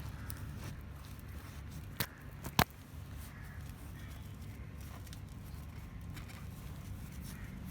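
Steady low background rumble, with two sharp clicks or knocks a little after two seconds in, the second louder.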